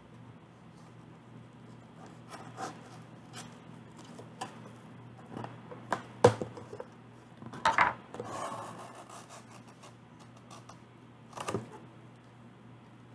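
Cardboard shipping box being handled and opened: flaps rubbing and scraping, with a few sharp knocks. The loudest knock comes about six seconds in, a double knock with a short rustle just under eight seconds in, and one more near the end.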